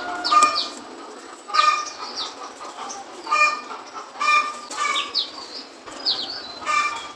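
Birds calling over and over, about once a second: short pitched calls mixed with high, quick downward chirps.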